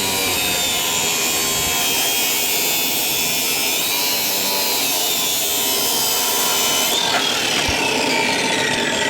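A handheld power tool working on steel during race-car chassis fabrication, running steadily under load with a whine that wavers in pitch.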